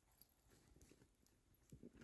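Near silence, with a faint click and a few faint rustles.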